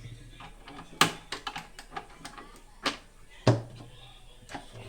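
Screwdriver and loosened screws clicking and tapping against the plastic freezer panel of a frost-free refrigerator as the screws are taken out. There are sharp knocks about a second in and about three and a half seconds in, with lighter ticks between.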